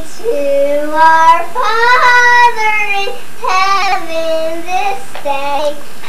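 A young child singing alone, without accompaniment: a few drawn-out phrases whose notes slide up and down, with short breaths between them.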